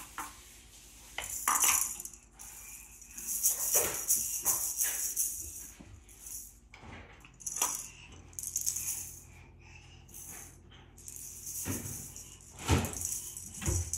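A small hand-held toy rattling, shaken in irregular bursts, with a couple of dull thumps near the end.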